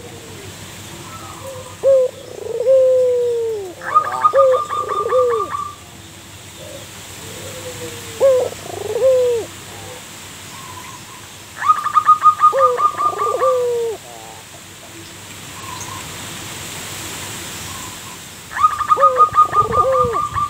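Zebra dove (perkutut) cooing in repeated bouts of short swooping coos. Three of the bouts carry a fast, higher-pitched rattling trill.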